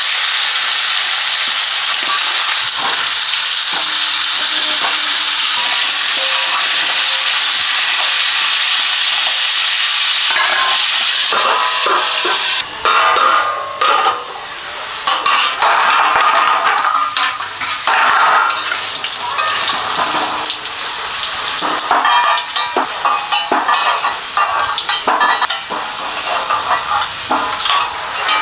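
Whole potatoes frying in hot oil in a steel kadai: a loud, steady sizzle. After about twelve seconds it turns uneven, with a metal spatula scraping and clinking against the pan as the potatoes are turned.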